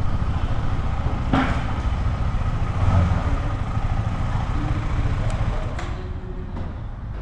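KTM 390 Adventure's single-cylinder engine running, a steady low rumble with road and wind noise, with a light knock about a second and a half in.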